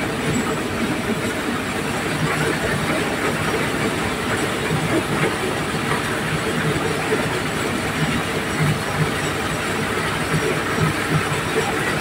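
Diesel-driven mobile corn sheller running steadily while shelling whole corn cobs: a dense, even mechanical rattle and hiss of the engine and threshing drum, with no pauses.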